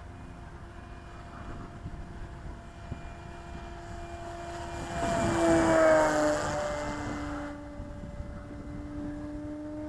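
Electric motor and propeller of an E-flite Cessna 150 RC model airplane whining steadily in flight. It passes close by about five to six seconds in, growing louder, and its pitch drops as it goes past.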